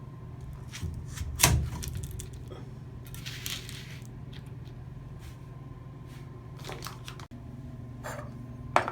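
Metal clicks and knocks from a wrench tightening the threaded retaining nut over a new Delta shower valve cartridge. A sharp knock about one and a half seconds in is the loudest sound, a short scrape follows, and lighter clicks come near the end.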